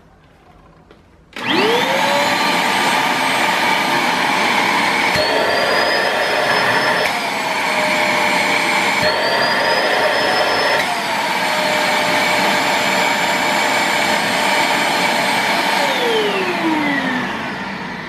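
Multilaser HO03 1000 W 2-in-1 vacuum cleaner switched on about a second and a half in, its motor spinning up with a rising whine and then running steadily. Twice its pitch rises for a couple of seconds while a hand blocks the intake, which strains the motor. Near the end it is switched off and winds down with a falling whine.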